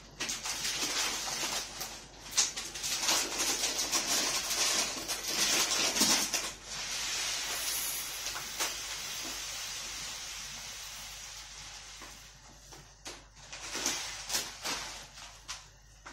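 Meat broth with olive oil boiling in a wide steel pan: a noisy bubbling hiss with irregular pops, strongest in the first half and fading after about seven seconds, then a few scattered pops near the end.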